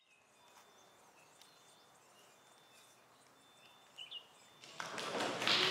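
Faint outdoor ambience with a few soft, short bird chirps. Near the end a steady hiss of outdoor noise swells up and grows louder.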